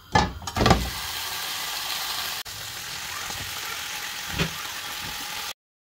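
Raw chicken strips dropped into a hot nonstick pot with two thuds, then sizzling steadily as they start to fry. A spatula knocks against the pot once near the end, and the sound cuts off suddenly.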